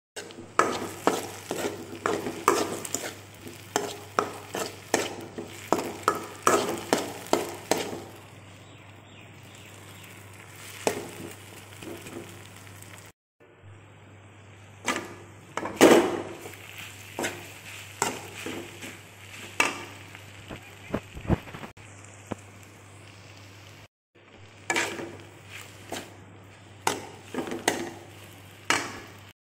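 Spatula stirring and scraping potato cubes and instant noodles frying in a kadai, knocking against the pan many times in busy spells, over a faint frying sizzle and a steady low hum.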